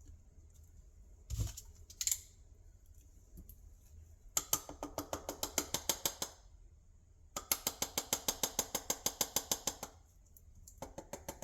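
Two knocks, then two runs of rapid, even clicking at about ten a second, each lasting about two seconds, as the burst powder and clay are worked out of an opened firework canister shell.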